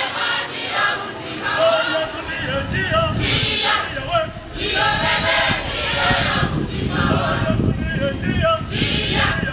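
A choir of many voices singing a hymn together, with a low rumble underneath from about two seconds in.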